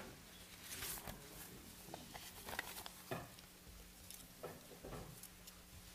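Faint rustling of paper and Bible pages being leafed through, with scattered small clicks and taps, over a low steady hum.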